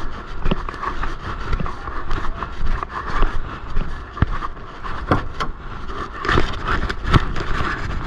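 Tractor-trailer on the move: steady engine and road rumble with frequent irregular knocks and rattles.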